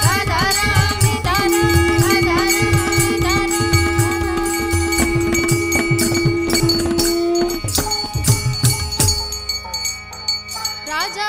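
Devotional song: singing over a quick hand-percussion beat with a rattle-like jingle and a long held note in the middle. The percussion drops out about nine seconds in, leaving softer singing.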